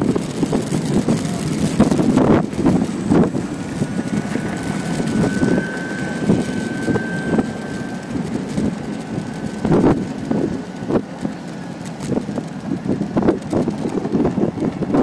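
Small wheels of electric scooters and electric skateboards rolling on asphalt, a steady rumble with wind on the microphone and short knocks as the wheels cross joints and bumps. A faint high whine holds steady for a few seconds in the middle.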